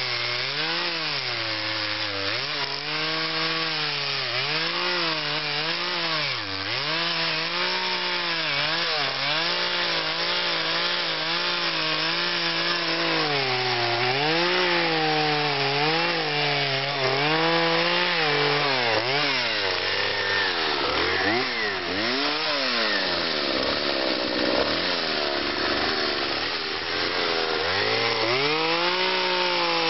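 Husqvarna two-stroke carving chainsaw cutting into cottonwood, its engine pitch dipping under load and picking back up again and again. About two-thirds of the way through it drops toward idle with quick throttle blips, then revs back up near the end.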